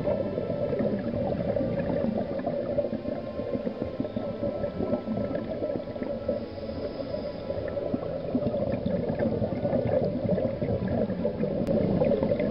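Steady underwater gurgling and bubbling picked up by a camera below the surface of a cenote, a continuous muffled wash of water noise.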